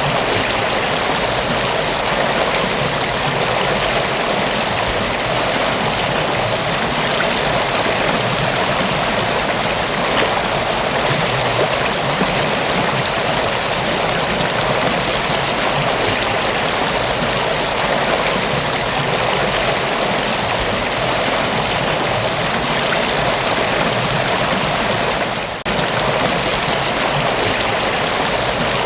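Mountain waterfall: a steady, even rush of falling and flowing water, with one momentary dip in level near the end.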